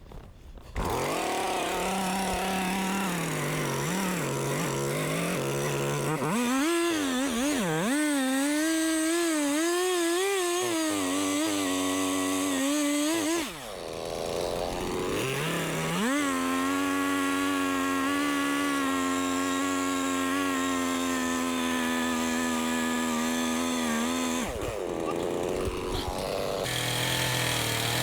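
Chainsaw idling, then opened up to full throttle and cutting into the tree, the pitch wavering under load; it eases briefly about halfway, runs steady at full throttle through a long cut, and drops back to idle near the end.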